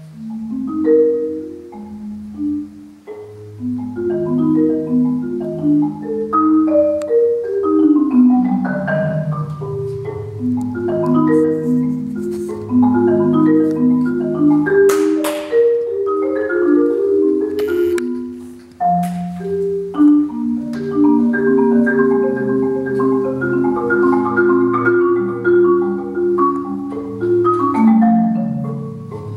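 Solo concert marimba played with mallets: fast, flowing runs and layered notes across the low and middle range of its wooden bars. A few sharp clicks cut through past the middle, and there is a short lull in the playing about two-thirds of the way through.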